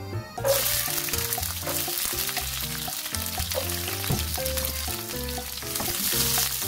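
Garlic cloves dropped into hot cooking oil in a nonstick wok, sizzling suddenly about half a second in and then frying steadily, with a silicone spatula stirring them near the end. Background music plays throughout.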